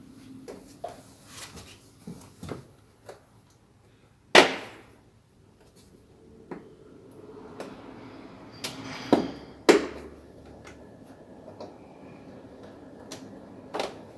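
Scattered clicks and knocks of plastic car interior trim being unclipped and handled. The loudest is a sharp snap about four seconds in, and two more come close together a little past the middle.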